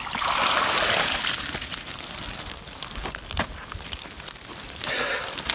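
Mesh yabby pot hauled out of a muddy pool: water splashes and pours off the net for about the first second, then scattered crackles and rustles as the net and its catch are dragged over dry grass and sticks.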